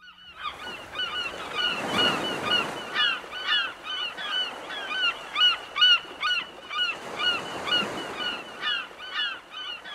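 Several gulls giving short, hooked cries over and over, several a second, over a soft rushing hiss that swells and fades twice.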